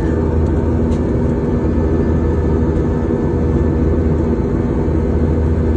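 Airliner cabin noise in flight: the underwing jet engine's steady drone and rushing air, with a low rumble and a few constant tones under it.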